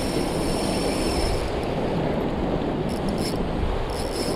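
Surf washing against a rock ledge with wind on the microphone, and the high whirring of a spinning fishing reel in short spells, for the first second or so and again near the end, while a hooked mackerel tuna is fought.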